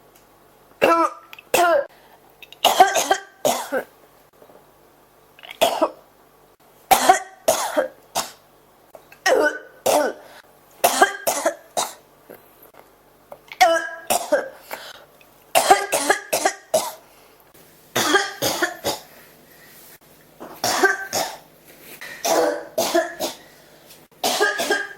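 A woman coughing over and over in a sustained fit, in short bouts of two to four coughs with brief pauses between, mixed with throat clearing.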